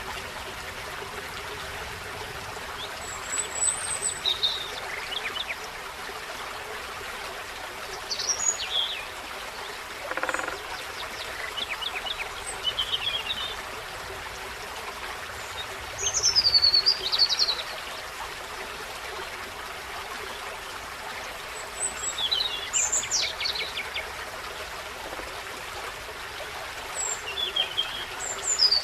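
A forest stream running steadily while songbirds give short chirping calls and song phrases every few seconds; the loudest phrase comes about halfway through.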